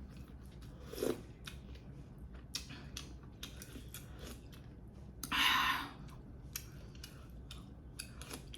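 Close-miked eating: a run of small sharp clicks from utensils on dishes, with chewing, and one louder crisp crunching noise lasting under a second, a little past halfway.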